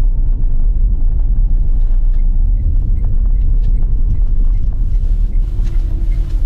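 Lada Largus on the move, heard from inside: a steady low rumble of road and engine noise.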